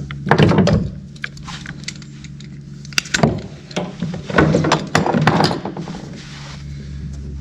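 Hand tools and metal parts being handled during fuel-line work: three spells of clinks, rattles and knocks, about half a second in, around three seconds in and again from about four to five and a half seconds, over a steady low hum.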